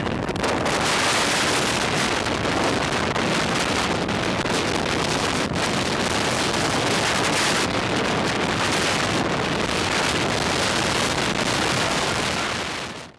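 Strong wind blasting across the camera microphone in loud, gusting rushes: inflow winds of 80+ mph being pulled into a nearby tornado. The sound fades out near the end.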